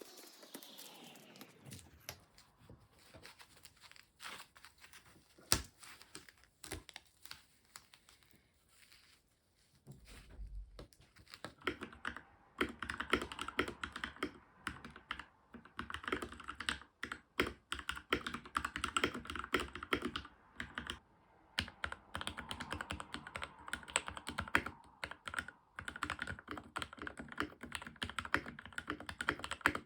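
Keychron K4 mechanical keyboard with factory-lubed Gateron Red linear switches being typed on. Scattered single keystrokes for about the first ten seconds, then fast, continuous typing.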